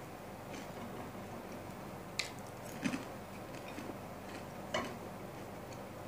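Close-miked eating of fried food: chewing with a few sharp, crisp crunches, the loudest about two, three and five seconds in.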